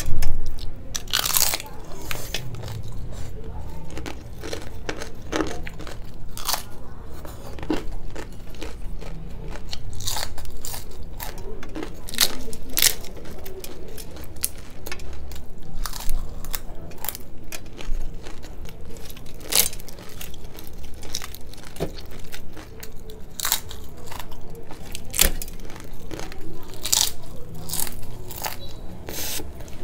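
Close-miked crunching and crackling as the crisp deep-fried shell of a raj kachori is broken by hand and chewed: a run of sharp, irregular cracks with wet chewing between them. The loudest crack comes right at the start.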